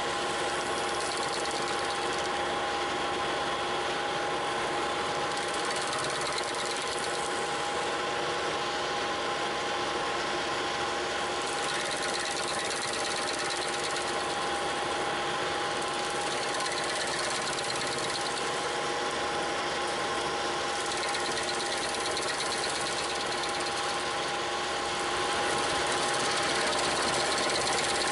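Bobcat T300 track loader's diesel engine running steadily under load while driving the SG60 stump grinder attachment on its hydraulics, with a steady whine over it. It gets a little louder near the end.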